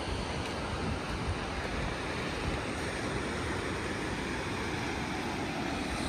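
Ocean surf breaking, with steady wind noise on the microphone.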